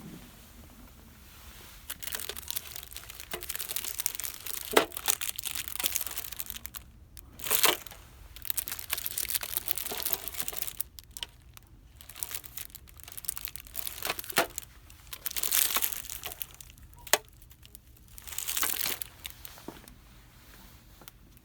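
Crinkly packaging being handled: crinkling and rustling in bursts with a few sharp taps, starting about two seconds in and dying away near the end.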